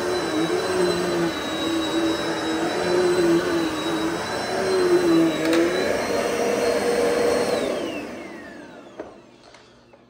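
Dirt Devil Multi-Surface Total Pet+ upright vacuum running on a rug, with a high motor whine and a low hum that wavers as it is pushed back and forth. About seven and a half seconds in it is switched off, and the whine falls away as the motor spins down.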